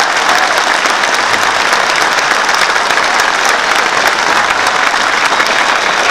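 A large audience applauding steadily, with many hands clapping at once.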